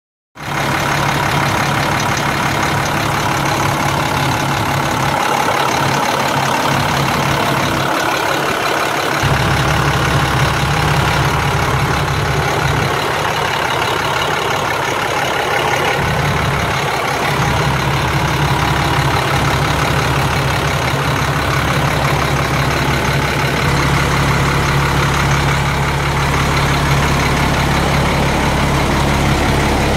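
Diesel engine of a 2002 International patch truck idling steadily. The low rumble grows stronger about a third of the way in and again near the end.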